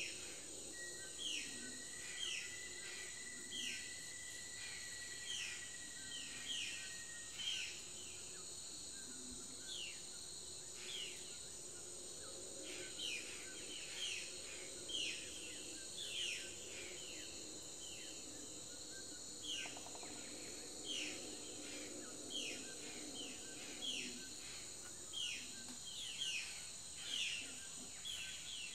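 Tropical forest ambience: a steady high-pitched insect drone, with short falling chirps repeated about once or twice a second.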